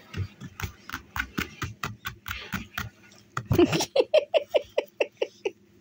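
A woman laughing in quick, short breathy pulses, about four or five a second, that turn into a higher-pitched giggle about three and a half seconds in.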